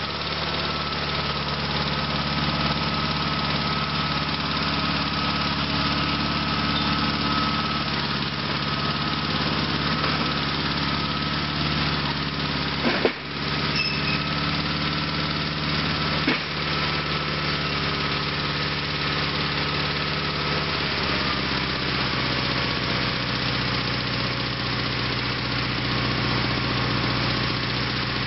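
Sears SS/16 garden tractor's Onan twin-cylinder engine running steadily while the dozer blade pushes dirt, with two sharp knocks near the middle. About three-quarters of the way through the engine drops to a lower speed.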